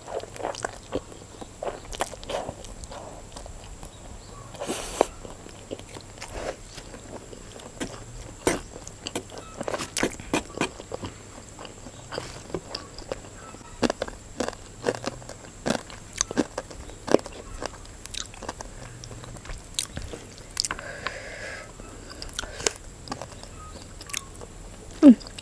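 Close-miked eating: chewing and biting of instant noodles with a fried egg, with many short wet smacks and clicks at irregular intervals.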